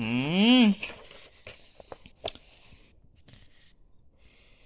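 A brief wordless vocal sound at the start, its pitch rising and then falling. After it, soft paper rustling and a few light clicks as a picture book's page is turned and smoothed down.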